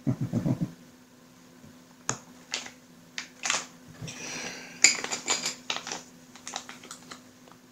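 Plastic miniatures and their plastic bag packaging being handled: scattered light clicks and taps, with a stretch of crinkling plastic about four to five and a half seconds in.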